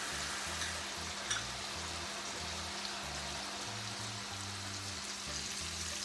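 Chopped vegetables in soy sauce sizzling steadily in hot oil in a frying pan, with a couple of faint clicks.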